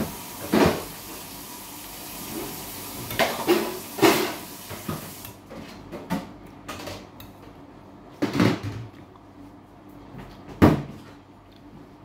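Metal spoon knocking and scraping against a dinner plate while eating: a handful of separate clinks and knocks several seconds apart. A steady background hiss stops about five seconds in.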